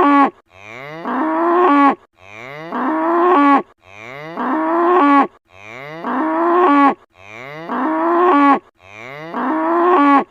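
A cow mooing, the same call looped over and over, about one every two seconds. Each moo rises in pitch, holds steady, and cuts off abruptly.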